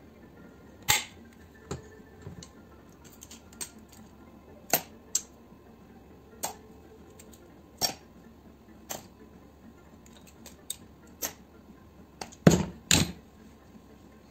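Metal hand tools clicking and knocking against a pressure washer's cast pump head and the workbench as the pump is taken apart: a dozen or so irregular sharp clicks and clacks, the loudest two close together near the end.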